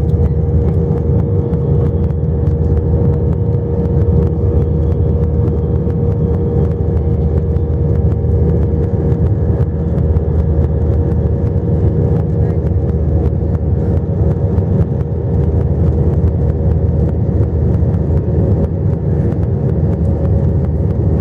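Airliner cabin noise from jet engines: a loud, steady low rumble with a steady whine over it, heard from inside the passenger cabin.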